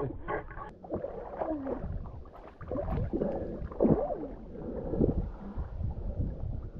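Water sloshing and splashing around a camera at the surface as a swimmer climbs out onto a wooden dock, with a low wind rumble on the microphone.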